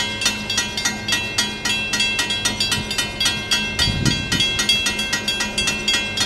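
Railroad crossing bells ringing rapidly, about four strikes a second, sounding the warning of an approaching train while the crossing gates come down. A brief low rumble about four seconds in.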